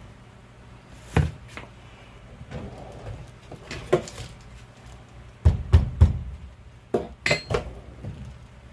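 Irregular knocks and clanks of hand tools and metal parts being handled and set down. The knocks come singly about a second and about four seconds in, then in quick clusters of two or three near the middle and towards the end.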